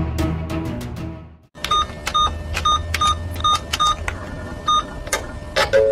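A music jingle fades out, then after a brief gap come about eight short electronic beeps, each at the same pitch and a third of a second or so apart, followed near the end by a longer steady two-note tone.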